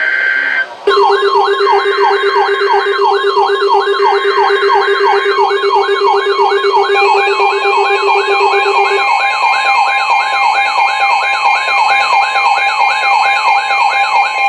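Weather-radio alert data bursts, short blocks of buzzing digital tones that mark the start of a new alert. About a second in, a loud electronic siren-like alarm joins them: a tone sweeping upward over and over, about two to three times a second, over steady beeping tones.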